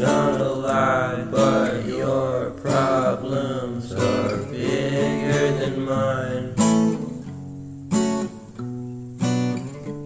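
Music: an acoustic guitar song, with a singing voice over the strumming for about the first six seconds, then strummed chords alone.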